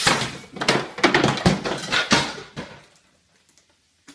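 SodaStream bottle of carbonated wine releasing its gas pressure: a loud hiss cuts off at the start, followed by about two and a half seconds of sputtering and clattering that dies away.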